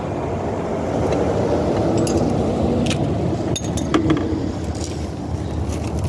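A steady low vehicle rumble, with several light metallic clinks of hand tools and sockets being handled.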